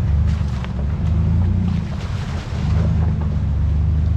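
A vintage Willys Jeep truck's engine running at low revs while it drives over rough ground, its note swelling and easing with the throttle, with a few sharp knocks and rattles over it.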